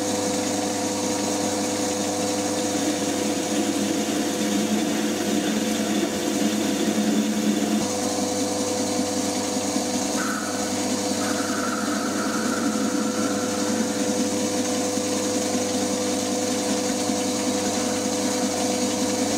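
FDB Maschinen Turner 250x550 bench lathe running with its chuck spinning while a cutter cuts the metal chuck key held in it: a steady motor and gear hum under a rougher cutting noise that changes about eight seconds in. From about ten seconds in, a high steady whine comes and goes.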